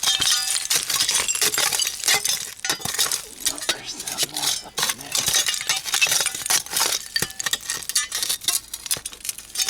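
Old glass bottles clinking and knocking against one another and against broken glass, many quick irregular clinks.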